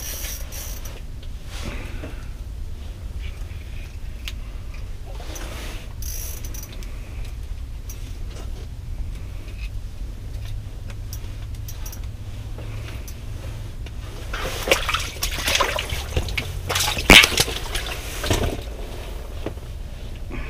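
Northern pike being landed through an ice-fishing hole: water splashing and handling noise for several seconds near the end, with one sharp knock, over a steady low hum.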